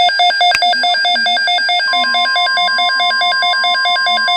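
A NOAA weather radio receiver sounding its alert alarm: rapid electronic beeping, about eight beeps a second. About two seconds in, a steady single tone near 1 kHz, the broadcast's warning alarm tone, starts under the beeping, signalling an incoming Emergency Alert System message.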